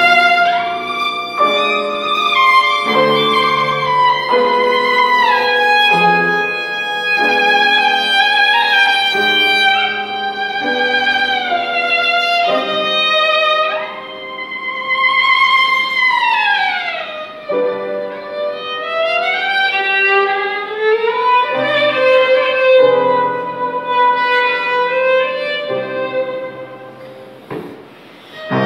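Solo violin playing a slow, lyrical melody of held notes, with a long downward slide about halfway through and then a climb back up, growing softer near the end.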